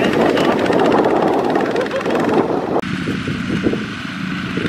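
Single-cylinder diesel engines of two-wheel walking tractors running steadily while pulling trailers, with a rapid, even firing rhythm. The sound changes abruptly about three seconds in.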